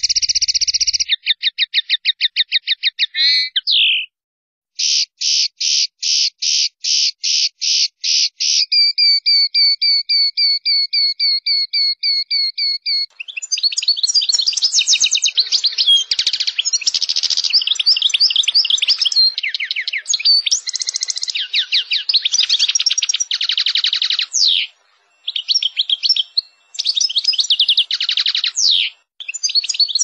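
European goldfinch singing. For the first dozen seconds it gives long, rapid rolling trills and buzzy note series, with a brief pause about four seconds in. After that comes a fast, varied twittering song of chattering notes and short trills, broken by two short pauses near the end.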